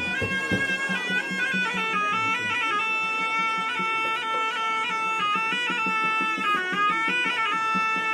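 Background music: a reedy, bagpipe-like wind melody moving in stepped, held notes over a steady low drone.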